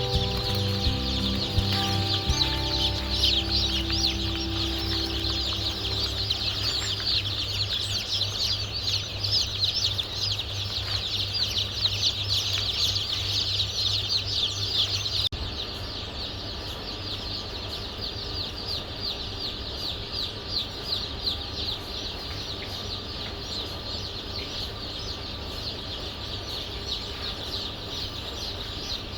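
A flock of chickens calling at once, a dense chorus of overlapping high-pitched calls over a low hum that stops about halfway through.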